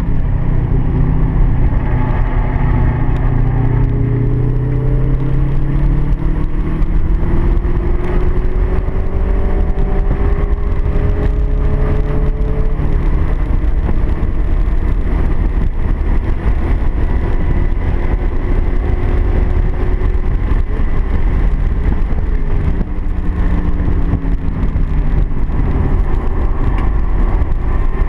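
Car engine running hard at speed on a race track, over heavy road and wind noise. Its pitch climbs slowly for about twelve seconds under acceleration. Past the middle the revs drop briefly and build again.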